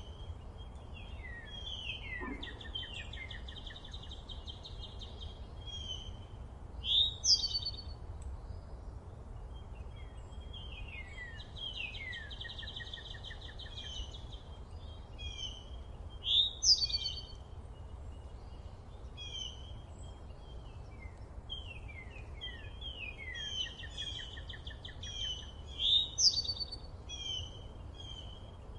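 Songbirds singing in a forest, repeating song phrases: a loud, sharp down-slurred note about every nine seconds, with rapid trills and short descending chip series between them. A steady low rumble lies underneath.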